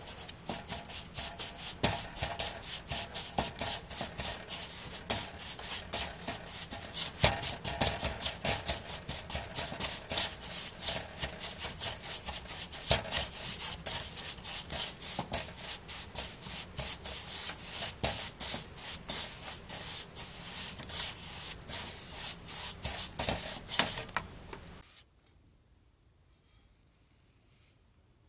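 Silicone spatula stirring and mashing a damp ground black sesame filling against a stainless steel bowl: rapid, gritty scraping and rubbing strokes that stop a few seconds before the end.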